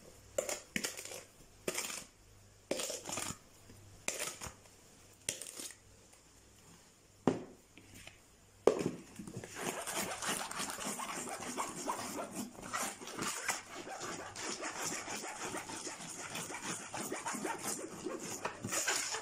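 A plastic bowl knocking and tapping against a plastic sieve as ricotta is emptied into it, with two sharp clicks about seven and eight and a half seconds in. From about nine seconds in comes a steady scratchy rubbing as the sweetened ricotta is pushed through the sieve's mesh by hand.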